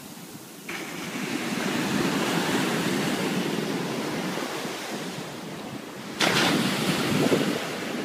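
Surf washing up over sand in a swelling rush, with wind on the microphone. A second, louder rush starts about six seconds in.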